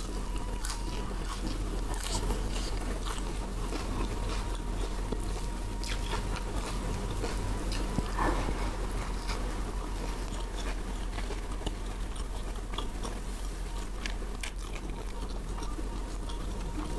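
A person chewing close to a clip-on microphone, crunching raw leafy greens and rice, with many small wet mouth clicks.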